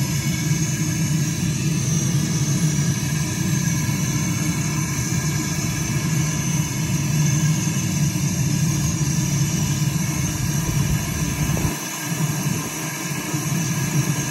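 Propane grill torch running with a steady flame noise, its jet blowing into lump charcoal to light it; the low rumble dips briefly near the end.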